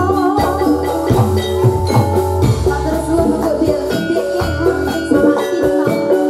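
Javanese gamelan accompaniment for jathilan dance: metal-keyed mallet instruments playing a repeating melody over regular drum strokes and a deep bass.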